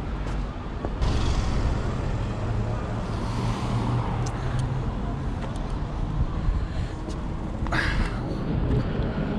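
City street traffic noise: a steady low rumble of road traffic, with a short burst of noise about eight seconds in.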